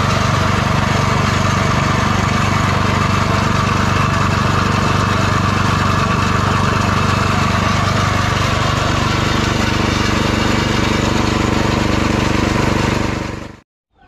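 Small single-cylinder gasoline engine running steadily under load, belt-driving a meat grinder that is mincing fish and feed pellets into paste. The steady running stops abruptly about half a second before the end.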